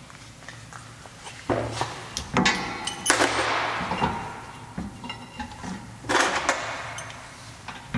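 Metal clanking and scraping as a rear brake caliper is moved around on its mount by hand, metal knocking on metal. There is a burst of clatter about a second and a half in, a longer scrape around three seconds in, and another clatter around six seconds in.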